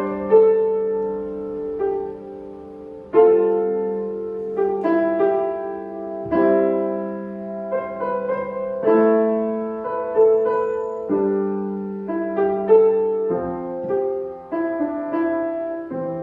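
Solo piano playing a slow pop-song arrangement, with chords and melody notes struck every second or two and left to ring and fade.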